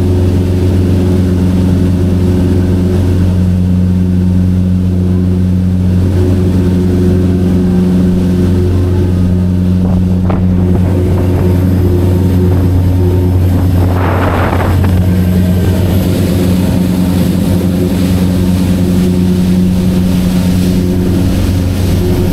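Fishing boat's engine running steadily, a deep even drone, with a brief rush of noise about two-thirds of the way through.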